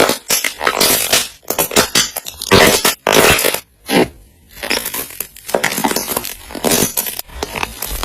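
Slime being squished, making an irregular run of wet squelches and small sharp pops, with brief pauses between squeezes.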